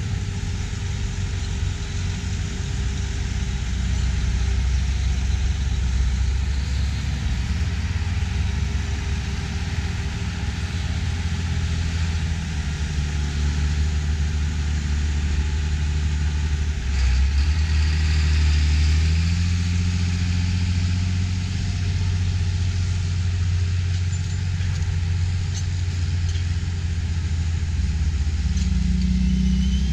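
John Deere 8000 series diesel tractors running on a silage pile while pushing and packing chopped corn. The engines run steadily, with the note rising under load about seventeen seconds in and again briefly near the end.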